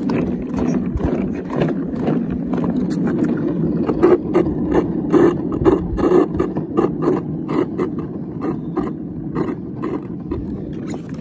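Hard wheels of a ride-on toy police car rolling over rough concrete pavement: a steady rumble with many irregular clicks and rattles.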